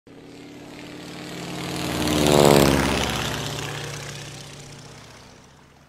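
A propeller airplane flying past: the engine drone swells to its loudest about two and a half seconds in, drops in pitch as it passes, then fades away.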